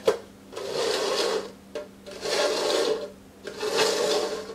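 Hard plastic cups slid and scraped across a tiled floor in three long strokes as they are shuffled, after a sharp tap at the start as a cup is set down.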